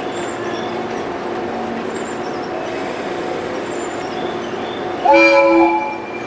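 485 series 3000-subseries electric train standing at the platform with a steady hum, then sounding its horn once about five seconds in: one short, loud blast of under a second, the signal that it is about to depart.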